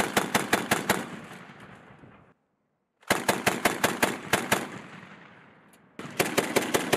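Tripod-mounted machine gun firing three short bursts of about seven to nine rounds each, at roughly seven shots a second. Each burst is followed by a fading echo, and the sound cuts off abruptly between bursts.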